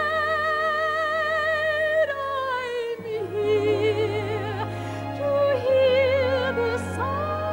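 A female soprano singing with wide vibrato over orchestral accompaniment: one long held note for about two seconds, then a slide down into a run of shorter, shifting notes.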